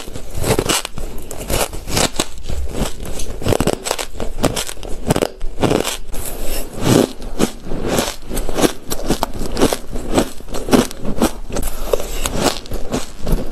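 Crushed ice being bitten and chewed close to the microphone: dense, irregular crisp crunches, many a second.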